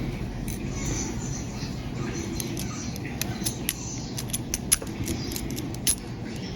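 A city rake being worked in and out of a Master Lock padlock's keyway, scraping over the pin tumblers with quick, irregular small metallic clicks. Two sharper clicks stand out near the end.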